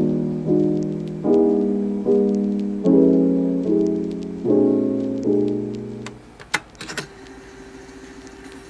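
Slow solo piano background music, a new chord struck roughly every second, fading out about six seconds in. A few light clicks follow, then a quieter stretch with one faint held note.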